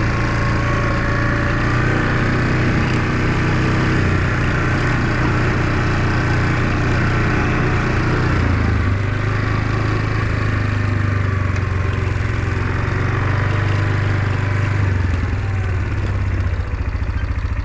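Engine running steadily, shifting in pitch a couple of times and settling into an even, rapid pulsing near the end, like an idle.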